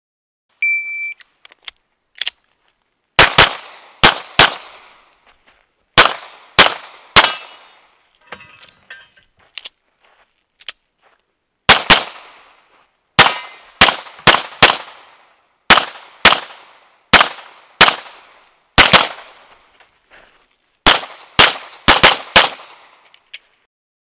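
An electronic shot-timer beep sounds once, briefly. Then a STI Matchmaster Open-class pistol fires about two dozen shots in quick pairs and short strings, with pauses between the groups, as a practical-shooting stage is shot.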